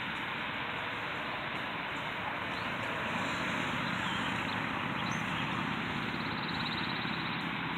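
Steady road noise from traffic on the nearby road, with a car passing that swells the noise a few seconds in.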